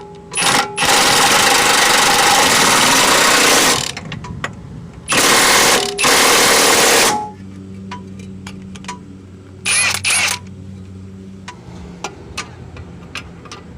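An impact wrench running on the Jeep Grand Cherokee's rear lower control arm bolts in two bursts of two to three seconds and a shorter one, tightening the fasteners with the suspension loaded. Quick ratchet-like clicks follow between the bursts, over quiet background music.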